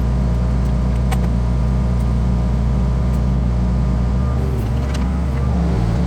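Compact diesel engine running steadily at a constant speed, with a few light clicks over it.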